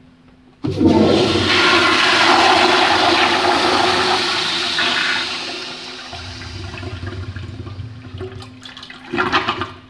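Toilet flushing: a sudden loud rush of water starts just under a second in, holds for about four seconds, then fades. A brief louder surge comes near the end before it cuts off.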